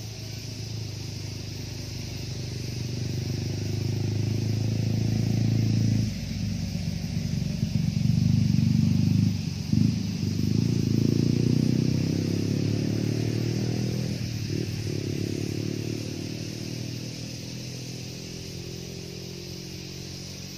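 An engine passing close by: it grows louder over the first half, dips and changes pitch a few times around the middle, then fades away.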